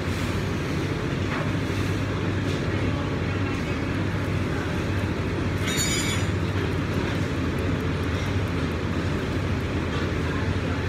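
Steady machinery drone with a constant low hum, typical of a large commercial kitchen's ventilation fans, with a few faint clicks and a short bright clink about six seconds in.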